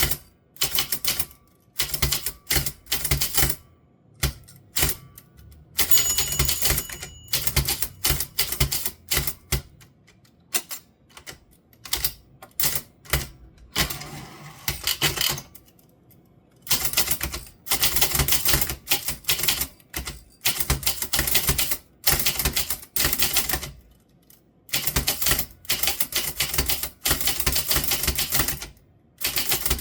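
Typewriter being typed on: quick runs of key strikes in bursts of a second or two, broken by short pauses.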